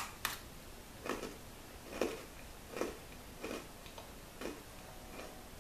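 A crisp bite into a Caramel Apple Oreo cookie, a sharp crack followed quickly by a second one. Then the cookie is chewed with the mouth closed, a soft crunch about once a second that grows fainter toward the end.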